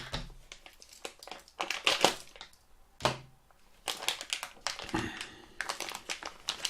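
Packaging crinkling and rustling, with irregular clicks and knocks of small plastic mount parts being handled. The louder rustles come about two, three and five seconds in.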